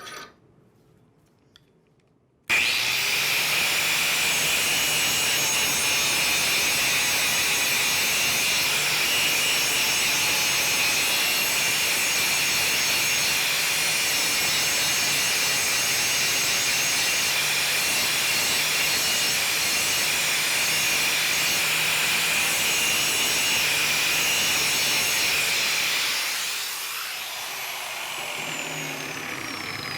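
Handheld angle grinder switched on about two and a half seconds in, grinding the cutting edge of a steel lawnmower blade with a steady, loud, high-pitched grinding noise. Near the end the grinding eases off and a falling whine follows as the grinder winds down.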